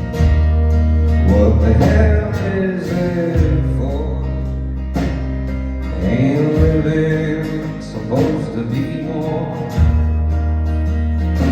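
A live band playing a song, with a singer's voice coming in phrases over a steady beat.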